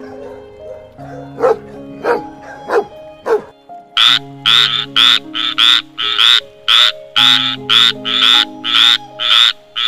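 An animal calling over background music: a few short, sharp calls, then from about four seconds in a loud run of evenly spaced calls, about two a second.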